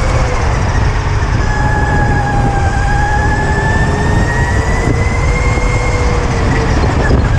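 Electric go-kart motor whining, its pitch slowly rising and falling as the kart speeds up and slows through the corners, over a steady low rumble of wind and track noise.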